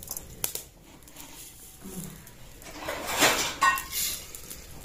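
An aluminium cooking pot being handled over a wood fire while tea is made, with clinks of metal near the start and a louder rushing burst about three seconds in.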